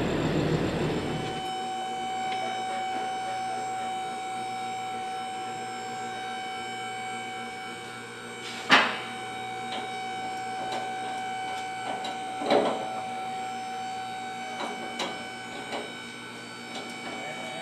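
Truck engine rumble heard from the cab, cut off abruptly about a second and a half in, then a heavy-duty vehicle hoist under the truck: a steady motor whine with loud metal clanks a little past halfway and again a few seconds later, and lighter knocks near the end.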